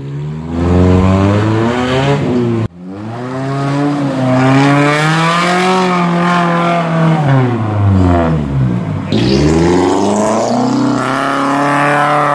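Off-road 4x4 engine revving, its pitch rising and falling slowly over several seconds at a time. The sound cuts off abruptly about two and a half seconds in, then builds up again.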